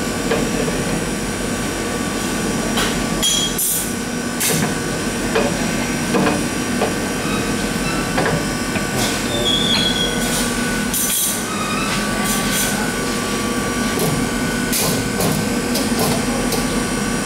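Scattered metal clicks and knocks as the stirring paddle is fitted onto the drive shaft of a GETRA CMS 80 SL tilting cooking mixer, over a steady machine hum.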